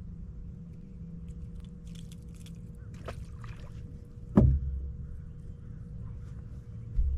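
A single loud thump a little over four seconds in, over a steady low hum with a faint steady whine, with a smaller knock near the end and a few faint clicks.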